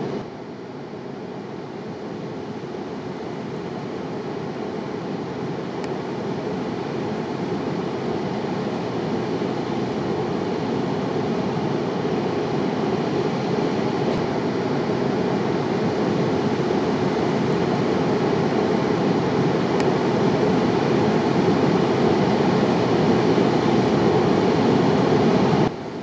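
Waterfall and rapids pouring over rock ledges: a steady rush of whitewater that slowly grows louder and cuts off suddenly near the end.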